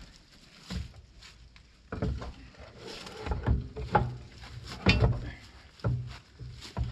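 A string of irregular heavy clunks and knocks as a mini excavator's rubber track and wheel are manhandled back into place on the undercarriage. There is one knock about a second in, then the clunks come thick from about two seconds in.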